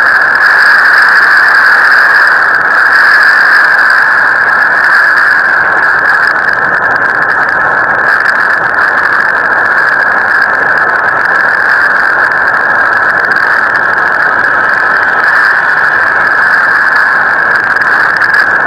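Tornado wind picked up by a doorbell camera's small microphone: a loud, steady, unbroken rush of noise.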